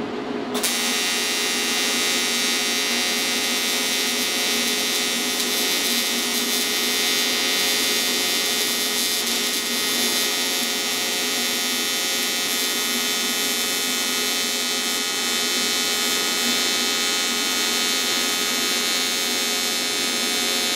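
AC TIG welding arc on aluminum, run from an AHP AlphaTIG 200X, buzzing steadily. It strikes about half a second in and holds an even, unbroken buzz.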